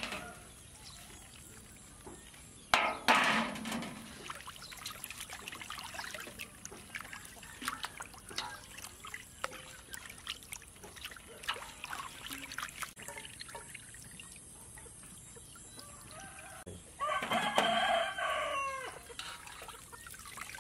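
Water sloshing and splashing as chopped raw pork is washed by hand in a steel bowl, with a loud splash about three seconds in. Near the end a rooster crows once, about two seconds long, the loudest sound.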